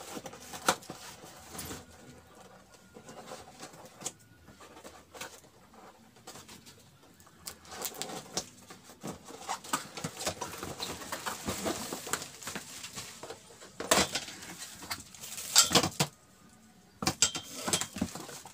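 Scissors cutting through a cardboard box, then the box opened and handled, with cardboard scraping and crackling and the plastic-wrapped metal stand inside shifting. There are scattered clicks and several sharp knocks near the end.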